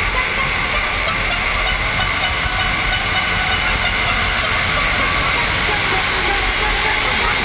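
Racing outboard motor on a ski race boat running at speed, heard from on board together with the rush of wind and spray as one steady, loud, hissing noise.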